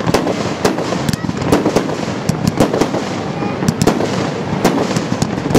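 Aerial fireworks going off in quick succession: a rapid run of sharp bangs, several a second, over a steady crackle.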